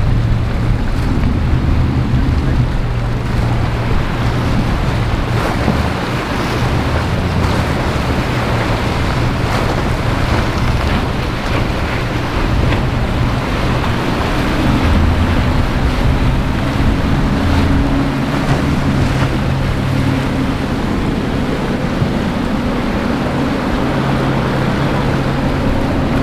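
Outboard motors of small center-console boats running through rough surf: a steady low engine drone under the rush of breaking waves and wind on the microphone. A second, higher engine note joins about halfway through.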